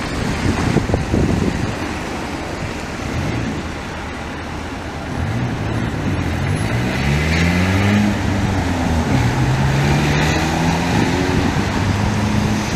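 Road traffic noise, with an engine going past whose pitch rises and falls several times over the second half.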